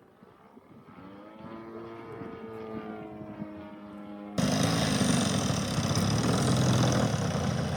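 Petrol-engined RC model airplane in flight: a buzzing engine note that grows louder over a few seconds. About four and a half seconds in, the sound cuts abruptly to a much louder rough noise that holds to the end.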